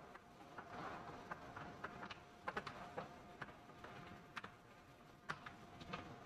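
Faint, irregular clicks and scrapes of a screwdriver tightening a breaker's terminal screw down onto stranded copper wire, over a faint steady hum.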